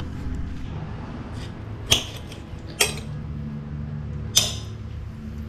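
Steel knife and fork clinking against a ceramic dinner plate while cutting a fillet of fish, three sharp clinks about a second apart, over a low steady hum.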